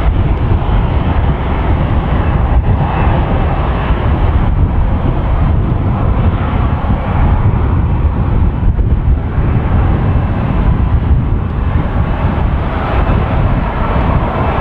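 Boeing 737-800's CFM56 jet engines running with a steady, loud rumble and hiss as the airliner rolls along the runway.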